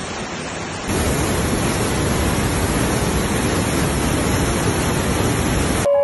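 Floodwater rushing down a street, heard as a loud, steady rushing noise. It jumps louder about a second in and cuts off abruptly just before the end.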